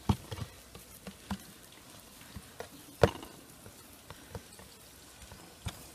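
Scattered soft knocks and taps of hands braiding dough strands on a wooden board, the loudest just after the start and about three seconds in.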